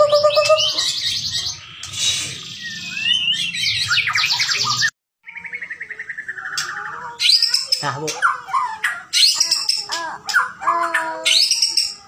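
White-rumped shama (murai batu, Bahorok strain) singing a fast, varied song of rapid trills and rising whistles. The song stops dead for a moment about five seconds in, then resumes.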